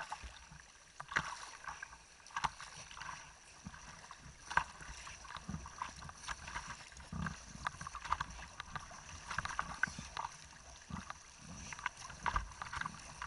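Fast river water lapping and splashing close by at water level: irregular small slaps and splashes over a steady rushing hiss of the current.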